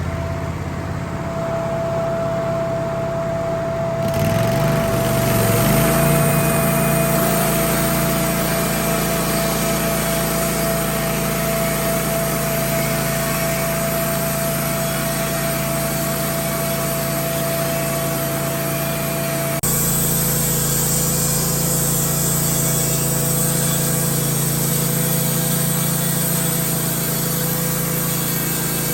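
Wood-Mizer LT15 portable band sawmill engine revving up from a lower hum about four seconds in, then running steadily under load as the band blade saws lengthwise through a log to cut boards.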